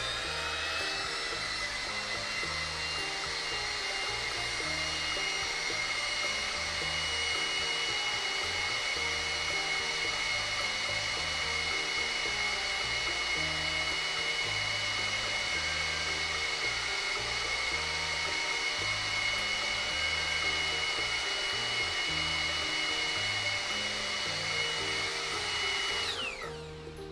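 Makita half-inch (12.7 mm), 1050 W electric router running with no load: a steady high whine that settles at full speed in the first second, then winds down in falling pitch near the end when switched off. It runs smoothly and lightly. Background music plays underneath.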